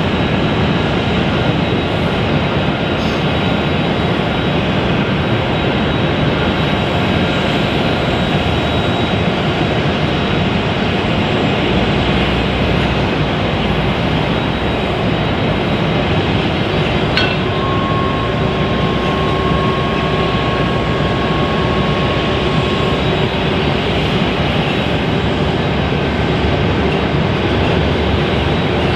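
Jet airliner engines running with a steady roar, a faint high whine over it. A little past the middle a short click comes, followed by a steady higher tone for about five seconds.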